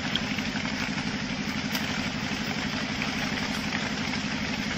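A small engine or motor running steadily with an even, fast low pulsing, under a steady hiss.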